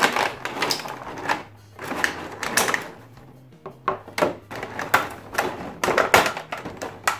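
Stiff clear plastic blister packaging crackling and crinkling as hands work parts of an action figure out of it, in quick irregular bursts with small knocks.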